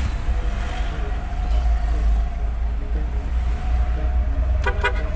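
Engine rumble and road noise inside the cab of a delivery truck moving slowly in traffic, with a few short, sharp sounds near the end.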